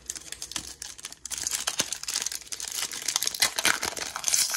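Wrapper of a 2023 Topps Series 2 baseball card hobby pack crinkling and tearing as it is ripped open by hand: a dense crackling that grows louder after about a second.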